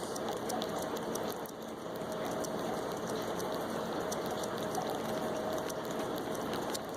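A cat licking and slurping at a popsicle: many small, rapid wet clicks over a steady hiss.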